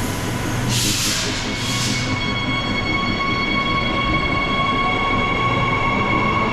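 Electric passenger train: two short hisses of air about a second in, then a steady multi-tone electric whine that starts about two seconds in and rises slightly in pitch near the end, over a low running rumble.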